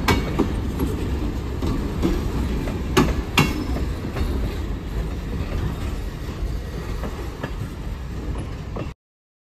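Freight train hopper cars rolling past, a steady low rumble with sharp wheel clicks, a close pair of clicks about three seconds in. The rumble slowly fades as the last car moves away, and the sound cuts off abruptly near the end.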